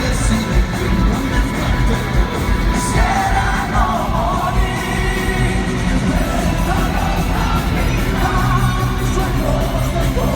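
Live rock band playing loudly, with a singer's voice wavering over the full band.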